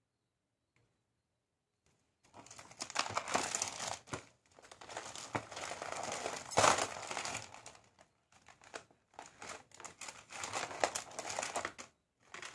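Packaging crinkling and rustling as it is handled, in uneven bouts that start about two seconds in and stop shortly before the end.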